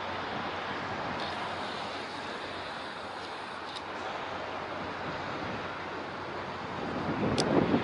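Steady outdoor wind and water noise with no clear engine tone. A gust buffets the microphone about seven seconds in, and a few faint high ticks sound.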